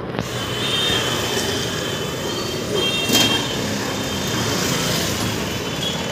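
Busy street traffic noise: a steady wash of motorbike and scooter engines and road noise, with brief high-pitched tones about a second in and again around three seconds.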